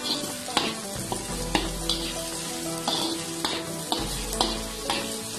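Potatoes, onion and tomato sizzling in hot oil in a pan while being stirred, a spatula scraping and knocking against the pan about once a second.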